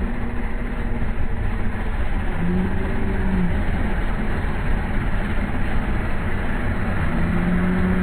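Diesel engines of a stuck Mahindra 475 DI tractor and a JCB backhoe loader running steadily under load as the tractor is pulled from deep mud. A short held tone sounds about two and a half seconds in and another starts near the end.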